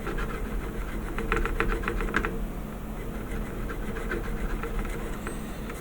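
A small hand file rasping on a plastic model kit part in quick, short strokes, filing a nub flat; the strokes come in a fast run about a second in, with a few fainter scrapes after.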